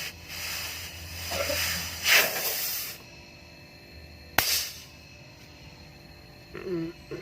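Pressurised gas hissing out in several bursts over the first three seconds. A sharp click about four and a half seconds in is followed by a short hiss.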